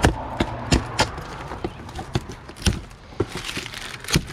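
A cardboard box being opened and its contents handled: irregular knocks, taps and rustling of cardboard.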